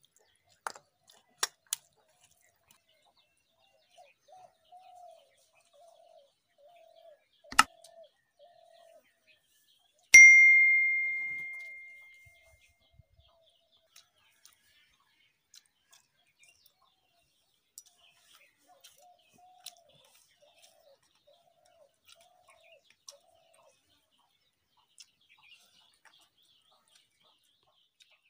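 A stainless steel dish clinks once about ten seconds in and rings with a clear high tone that fades over about two seconds; this is the loudest sound. A few sharp clicks of steel tableware come before it. A bird repeats a short call about twice a second in runs of several seconds.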